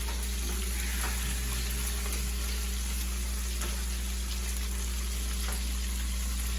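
Food deep-frying in hot oil, a steady sizzle with a few faint pops, over a constant low hum.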